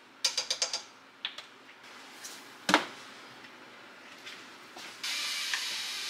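Kitchen counter handling sounds: a quick run of small clicks near the start, a single sharp knock a little under halfway through, and a steady scraping hiss for about the last second.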